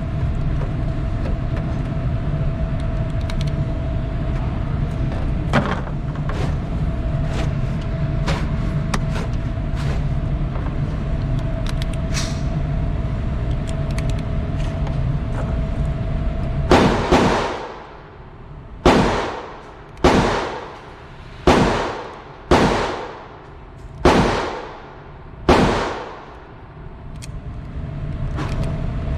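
A string of about seven gunshots, irregularly spaced roughly a second apart from about two-thirds of the way in, each followed by a long echoing tail. Before them there is a steady low rumble with a faint hum and a few faint distant shots.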